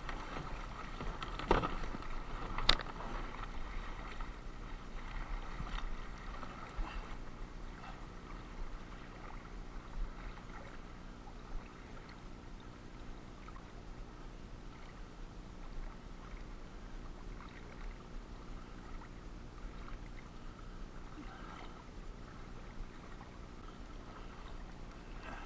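Water sloshing and lapping against plastic kayak hulls on a choppy current, with two sharp knocks near the start.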